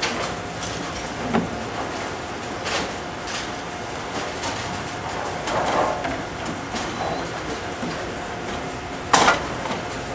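Bowling alley din: a steady rumble of balls rolling down lanes and pinsetter machinery running, with scattered clacks of balls and pins. The loudest is one sharp clack near the end.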